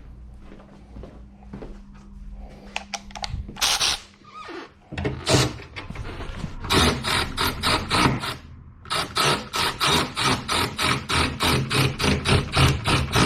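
Hand ratchet with a 10 mm socket tightening bolts, clicking in quick even strokes about four a second, with a short pause partway through. Before it come a few scattered knocks of tool and metal.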